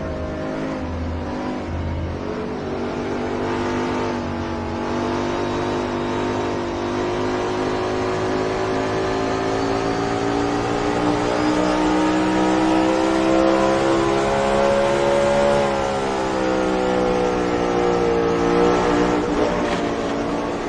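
Race car engine running at sustained high revs as a sound effect, its pitch climbing slowly for about fifteen seconds, then dropping and picking up again twice near the end.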